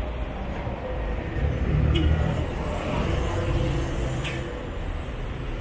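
Diesel engine of a city bus passing close by, its low rumble swelling about halfway through as it goes past, with a brief high hiss a little after four seconds.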